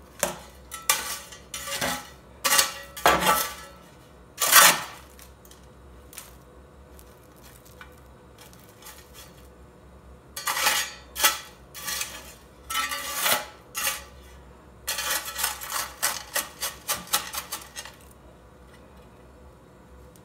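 Sheet-metal scoop scraping and clinking through coal ash and small clinker crusts in a steel ash tray, in three bursts with pauses between; the last burst is a quick run of rattling scrapes.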